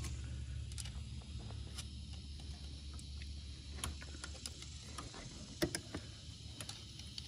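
Scattered light clicks and taps of a screwdriver working the throttle linkage on an ATV carburetor, over a steady high hiss. A low hum fades out in the first second or so.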